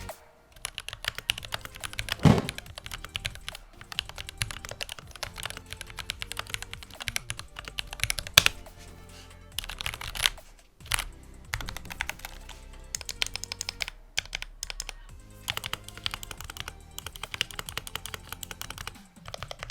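Close-miked typing on a Glorious GMMK Pro keyboard with Gateron G Pro 2.0 Yellow linear switches: a fast, continuous run of key clacks with a few louder strokes standing out. The owner hears a little rattle from the stabilizers on the larger keys.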